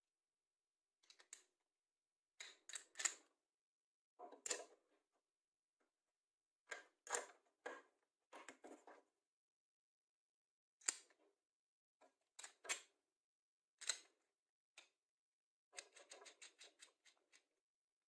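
Small metal bolts, nuts and a wooden block handled by hand, clicking and knocking together in short separate clicks and rattles with silence between, and a quick run of clicks near the end.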